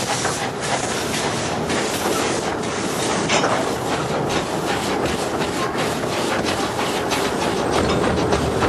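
15 in gauge miniature steam train running, heard from an open carriage behind the locomotive: a steady rush of running noise and steam with scattered clicks from the wheels on the track.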